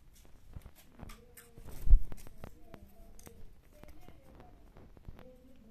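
Scattered light clicks and taps of wooden ice-cream sticks being handled, with one heavier thump about two seconds in.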